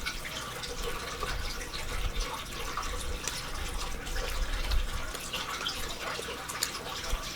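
Close-up eating sounds: wet chewing and mouth noises with many small irregular clicks.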